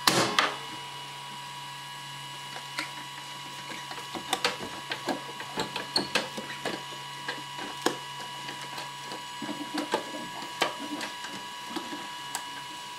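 Irregular clicks, knocks and rattles from a Zebra P320i card printer's card path as a jammed card is worked at by hand, starting with a louder knock. The printer's fan hums steadily underneath.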